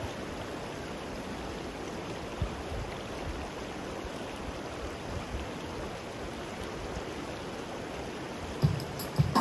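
Shallow mountain stream rushing steadily over a rocky bed, with a few soft knocks near the end.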